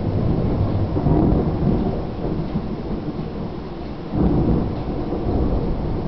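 Thunder rumbling in a severe thunderstorm. It swells in the first couple of seconds and eases off, then a new, louder peal of thunder starts suddenly about four seconds in. Steady rain hiss runs underneath.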